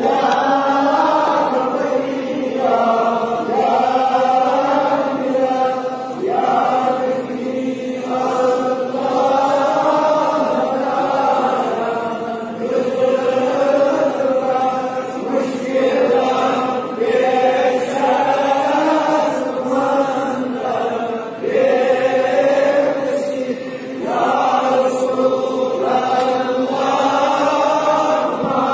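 A congregation of men's voices chanting together in unison, an Islamic devotional recitation sung in long rising and falling phrases with brief pauses between them.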